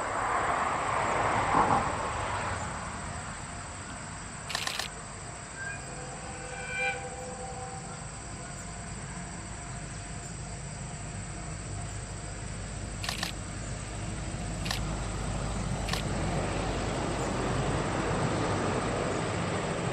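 Electric-locomotive-hauled train running on the rails, its low rumble building through the second half. A few sharp camera shutter clicks sound over it.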